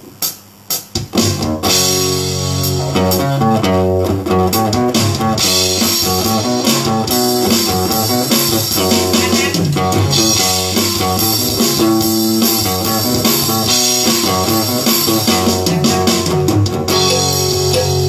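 A small live band playing: electric guitar, bass guitar and drum kit. A few sharp clicks come in the first second, then the full band starts about a second in and plays on steadily.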